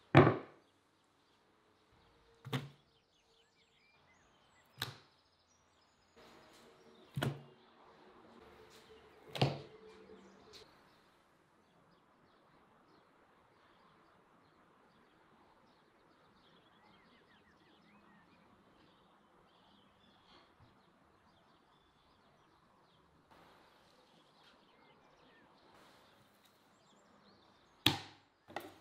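Five sharp knocks about two seconds apart, then a long stretch of faint background noise, and two more knocks close together near the end.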